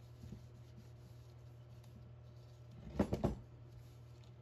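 A steel hitch ball mount is handled and set down on a wooden workbench, giving a short cluster of knocks about three seconds in. A low steady hum runs underneath.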